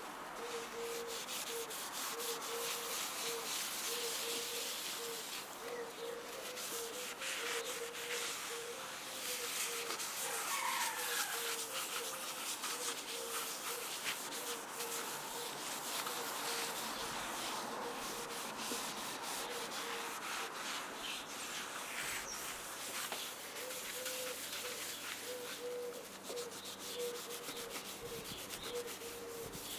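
Gloved hands rubbing and buffing an oil finish into an olive wood burl and epoxy resin tabletop: a continuous scrubbing, swishing friction noise as the palms work over the surface.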